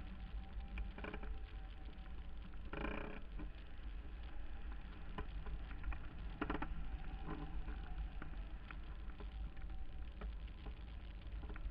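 Airflow buffeting the microphone of a camera mounted on a hang glider in flight: a steady low rumble, with scattered small ticks and rattles and two brief louder rustling bursts, about three seconds in and about six and a half seconds in.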